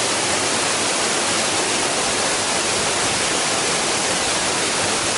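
A waterfall: a steady, unbroken rush of falling water.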